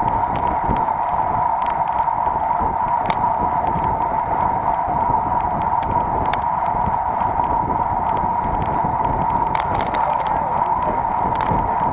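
Steady wind and road rush picked up by a bike-mounted camera while riding, with a few faint clicks.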